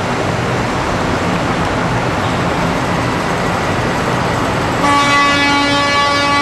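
Semi trucks running through a steady noisy din, then near the end a truck's air horn sounds one long steady blast.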